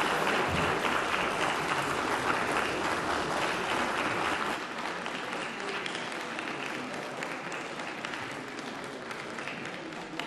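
Applause from a crowd of many people clapping, loud at first and tapering off about halfway through.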